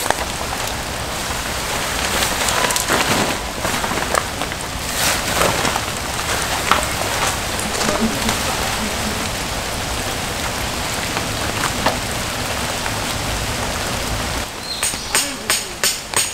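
Steady rain on the campsite, with the rustle of a nylon tarp being unpacked and dragged out. About a second and a half before the end, a hammer starts driving a tent peg, sharp strikes at about three a second.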